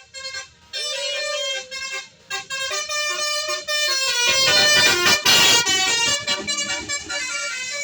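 Bus telolet horn, a multi-tone air horn, playing a stepping melody of short notes. A loud rushing noise swells under it about halfway through.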